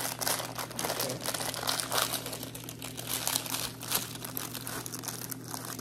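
Plastic cookie packaging crinkling as it is handled, a dense irregular crackle that thins out a little in the second half.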